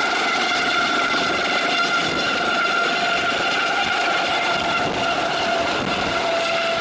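Eurocopter AS365 N2 Dauphin twin-turbine helicopter running at power: a steady high turbine whine over an even rushing rotor noise, with no change in pitch.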